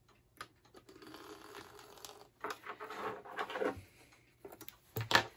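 Paper shop towel rustling and scraping in scratchy bursts as it is drawn out from under the presser foot of a sewing machine, then a short sharp click near the end as scissors cut the thread.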